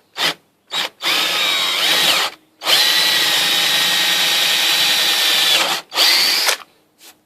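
Handheld electric drill boring down into the wooden bench top: two quick trigger blips, a run of about a second whose motor whine bends in pitch, a steady run of about three seconds, then a last short burst.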